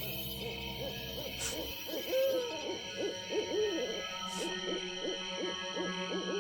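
Owl hooting: many short hoots that rise and fall in pitch, close together and overlapping, over a steady droning tone. A brief faint hiss sounds about every three seconds.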